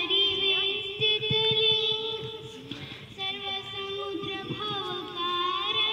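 A young girl singing solo into a microphone, holding long notes that glide up and down in pitch, with a short break for breath about halfway through.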